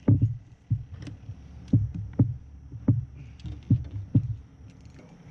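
A run of dull thumps and knocks in a boat, about eight of them at uneven spacing.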